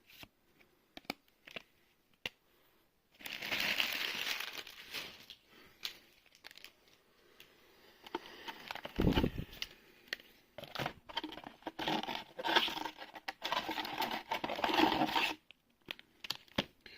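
Foil wrapper of a Magic: The Gathering booster pack being torn open and crinkled, in two long rustling stretches, with light clicks from handling cards and a single low thump about nine seconds in.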